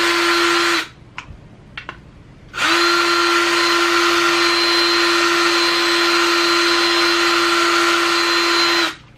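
Ryobi cordless drill spinning a cone rotary file inside a schedule 80 PVC elbow, grinding off the elbow's sharp inner edge: a steady whine with a grinding hiss. It stops about a second in, starts again near three seconds, and stops near the end.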